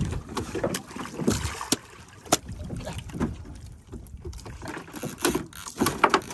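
Irregular sharp knocks and thuds on a wooden outrigger boat as a freshly landed yellowfin tuna is subdued, the loudest about two seconds in and a cluster near the end, over wind and sea noise.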